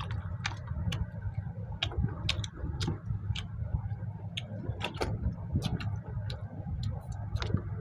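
Close-up eating noises of people chewing mutton curry and rice by hand: wet lip smacks and mouth clicks, irregular, several a second, over a low steady hum.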